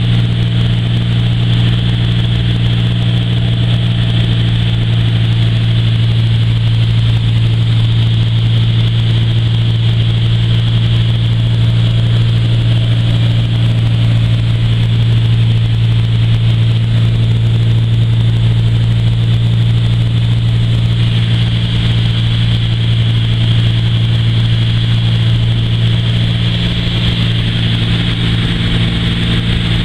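Bellanca Super Viking's single piston engine and propeller heard from inside the cabin in flight: a loud, steady drone with a deep low hum and airflow hiss over it, holding constant power throughout.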